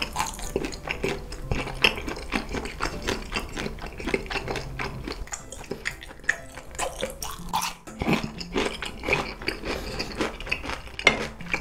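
Close-miked chewing of crisp food: a dense, irregular run of small crunches and mouth clicks.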